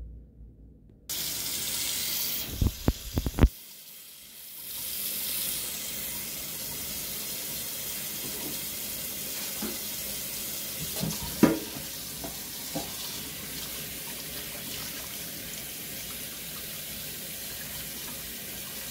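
Kitchen tap running steadily into a stainless steel sink, starting abruptly about a second in, with a few sharp knocks soon after. Later the water splashes over crappie fillets being rinsed by hand in a steel bowl under the tap.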